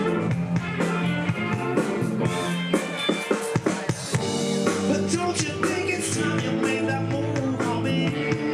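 Rock band playing live with electric guitars, bass and drum kit, with a run of drum hits about three seconds in.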